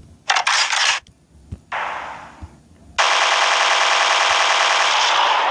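Gunfire sound effect: two short blasts, then a long burst of rapid machine-gun fire from about three seconds in that cuts off abruptly near the end.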